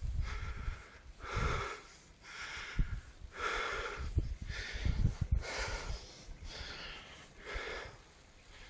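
A cyclist breathing hard from the effort of climbing, a loud breath about once a second, with wind rumbling on the microphone.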